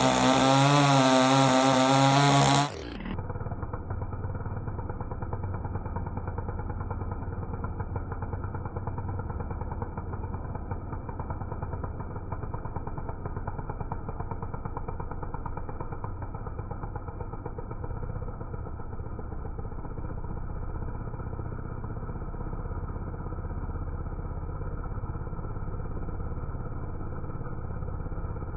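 Two-stroke chainsaw engine running steadily with a rough, fast rattle, sounding muffled. It is preceded, for the first few seconds, by a louder sound with a wavering pitch that cuts off abruptly.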